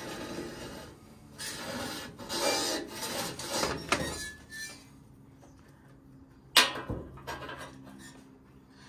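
Small parts handled and slid against a steel crossmember, scraping and rubbing in bursts for about the first four seconds. After that it is quieter, apart from one sharp clack about six and a half seconds in.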